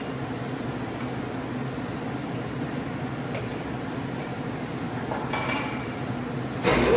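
Turret lathe running with a steady hum while it machines an aluminium blank, with a few light metallic clinks of tooling and chips. A louder, harsh rush of noise starts just before the end.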